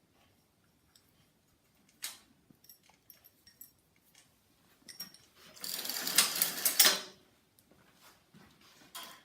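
A bicycle wheel spun by hand, its freewheel hub ratcheting in a fast buzz for about a second and a half midway, with a few light clicks before it.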